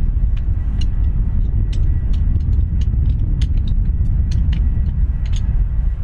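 Airliner jet engines at taxi power, heard as a steady low rumble, with a faint steady high tone and scattered light clicks throughout.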